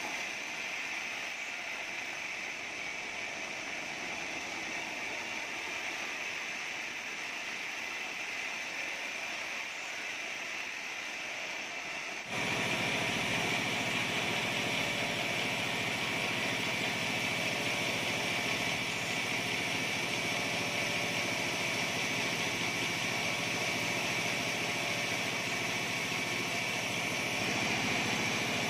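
Band-saw mill running steadily through a squared acacia beam. About twelve seconds in, the sound switches abruptly to a louder, steady engine running.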